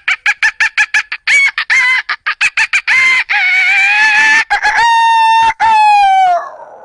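A boy's vocal imitation of a chicken: a quick run of clucks, about five a second, then long drawn-out calls, the last two like a rooster crowing.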